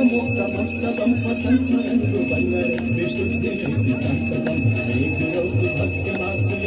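Temple bells ringing continuously over a steady drum beat, the sound of a Hindu evening aarti.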